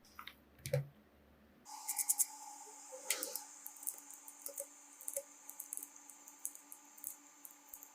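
Irregular small plastic clicks and taps of a computer keyboard and its cleaning tools being handled, starting about a second and a half in over a steady hiss, after a couple of soft knocks at the start.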